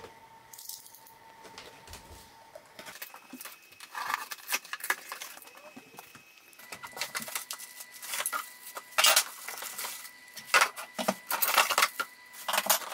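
A cardboard box being opened and the plastic-wrapped metal parts of a push reel mower handled inside it: irregular rustling, crinkling and light clattering that starts a few seconds in and grows louder and busier toward the end.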